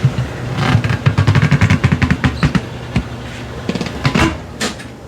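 Tire changer's turntable running with a steady low hum while the tire bead is worked over the rim under the mount/demount (duck) head, with a fast run of clicking and rattling in the first half and a few separate knocks later.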